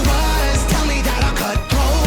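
Loud rock-pop music with heavy bass and a short break about one and a half seconds in.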